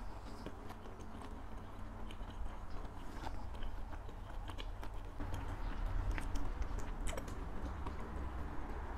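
Close-miked chewing with a full mouth, with scattered small wet clicks and crackles, getting louder about halfway through.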